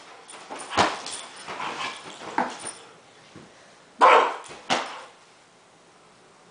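Dog giving a few short, sharp play barks and yips, spread out, with the two loudest close together about four seconds in.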